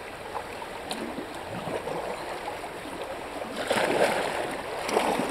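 Flowing river water, a steady rushing that swells louder twice near the end. It is the River Allier, which the paddler reckons has risen a bit.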